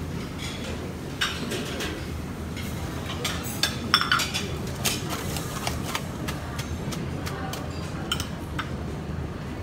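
China bowls and plates clinking and knocking as they are handled at a noodle station, scattered sharp clinks with a few louder ones, over a steady low rumble.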